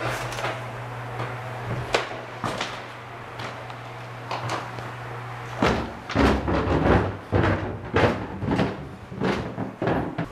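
Footsteps and knocks on old wooden floorboards and stairs, heavier and more frequent from about six seconds in, over a steady low hum.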